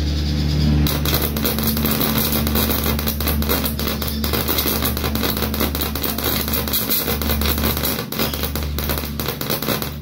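High-voltage arc from a flyback transformer jumping between two bare wire tips, crackling and buzzing continuously over a steady low hum; the arc starts about a second in. The tips are somewhat far apart, so the arc is less stable than it would be with them closer.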